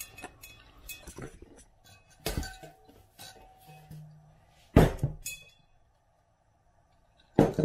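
Hard knocks and clinks of things being put down: a plastic folding crate holding a tablet and a drink tumbler set on a wooden table. There are a few sharp thuds; the loudest comes a little past halfway, and another near the end.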